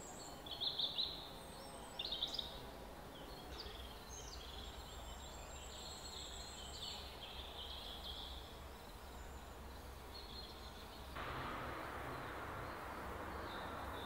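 Small forest birds chirping and calling, loudest in two short clusters of chirps in the first few seconds, over a faint steady ambient hiss. About eleven seconds in, a louder steady rushing noise comes in.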